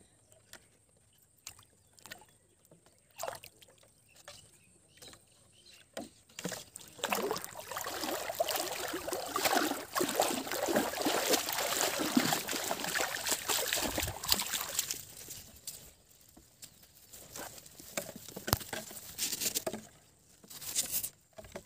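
Shallow muddy water splashing and sloshing as a person wades and hauls in a line of plastic-bottle floats: scattered small splashes at first, then several seconds of continuous heavy splashing in the middle, then intermittent splashes again.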